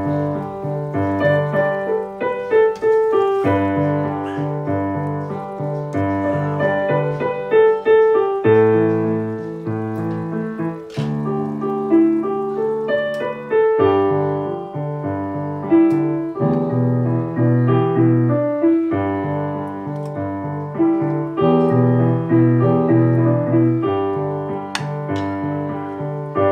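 Background piano music: a steady melody over a repeating bass figure.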